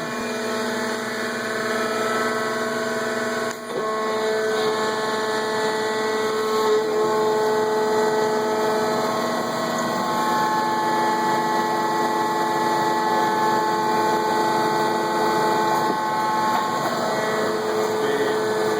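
Marvel vertical bandsaw running idle with its blade and hydraulic pump switched on: a steady machine hum made of several held tones, dipping briefly about three and a half seconds in.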